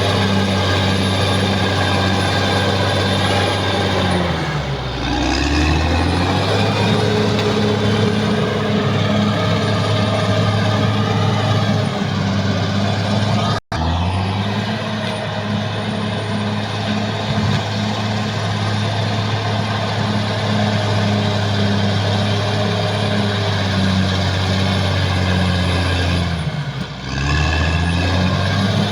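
Caterpillar D6R XL bulldozer's diesel engine running hard. Its pitch sags sharply twice, as the engine lugs down under load, and recovers each time. There is a brief break in the sound about halfway through.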